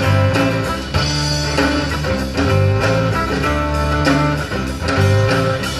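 Live band playing an instrumental break of a rock song: guitar, bass and drums with a steady beat, no singing.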